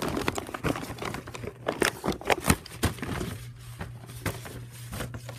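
Clear plastic packaging wrap crinkling and rustling as it is handled, busiest in the first three seconds and sparser after, over a steady low hum.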